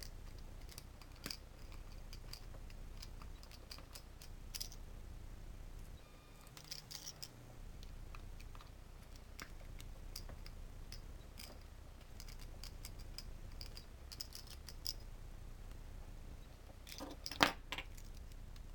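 Small precision screwdriver working the tiny screws on an LED lamp's circuit board: faint scattered clicks and scratchy ticks of metal on metal, with a louder clatter of clicks near the end.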